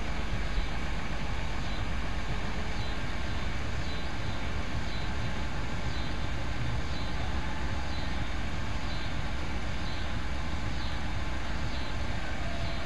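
Chevrolet Astro van's engine idling steadily, a low even rumble. Faint high chirps repeat roughly once a second over it.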